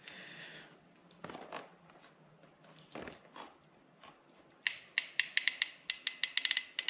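PEX clamp pliers closing a clamp onto a PEX pipe fitting: some handling noise, then a quick run of sharp clicks, about six a second, over the last two seconds.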